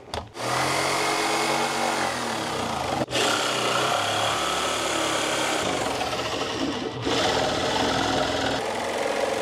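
Corded Black+Decker jigsaw running and cutting through a molded plastic lip around a round opening. The blade buzzes steadily and breaks off briefly twice, about three and seven seconds in, as the saw is steered around the curve.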